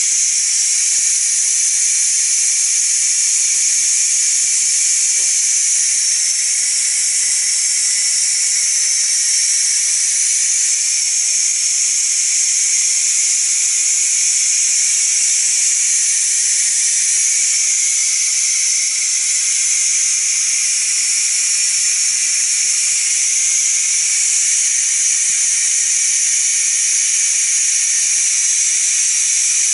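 Ninja Foodi pressure cooker venting steam through its open pressure-release valve: a steady hiss that does not let up, the pressure being let off after a high-pressure cook so the lid can be opened.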